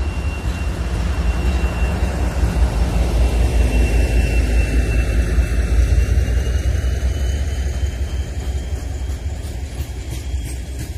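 Freight train of loaded coal wagons rolling past close by, behind a Tem2 diesel and a 3E electric locomotive: a deep, steady rumble of steel wheels on rail, loudest about midway, with a thin high whine that slides slightly lower. A few clicks of wheels over rail joints near the end.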